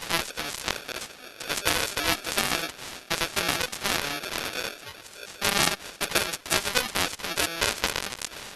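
Television broadcast audio garbled by a sound fault: dense crackling and stuttering digital distortion, with broken, chopped fragments of a voice coming through.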